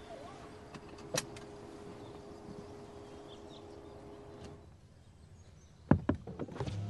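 Quiet car-interior ambience with a light click about a second in, then two sharp thumps in quick succession near the end from the car's doors or bodywork.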